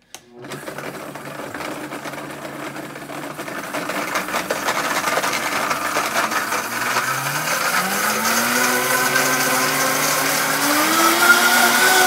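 Countertop blender switched on with a click, its motor chopping dates in a little water. The motor gets louder throughout and its pitch rises in two steps, about two-thirds of the way in and again near the end, as the speed dial is turned up.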